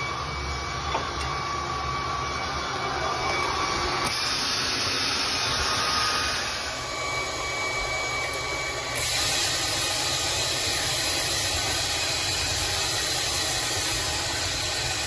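Vacuum cleaner running steadily, pulling air through a perforated pegboard vacuum-forming box as a heated plastic sheet is drawn down over a canopy mold.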